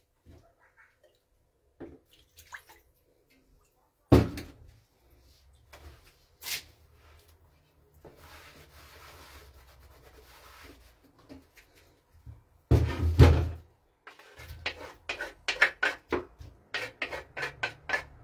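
Kitchen handling noises: a couple of sharp knocks and a heavier thump, a soft rushing stretch in the middle, then a quick run of light clicks as a utensil works through chunks of food in an earthenware bowl.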